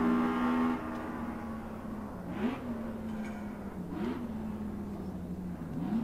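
BRM V16's twin-supercharged 1.5-litre sixteen-cylinder engine: a loud high note that cuts off sharply under a second in, then the engine runs lower and steadier, with three quick blips where the revs rise and fall back, under two seconds apart.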